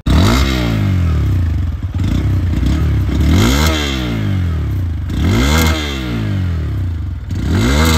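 Bajaj Pulsar N125's 125 cc single-cylinder engine idling and revved in short throttle blips about every two seconds, each rising in pitch and falling back to idle.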